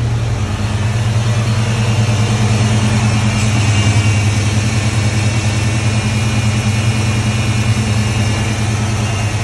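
1995 Ford Mustang GT's 5.0 (302) small-block V8 idling steadily just after a start, running on a freshly replaced harmonic balancer; the owner says it feels smoother than with the old balancer, which was coming apart.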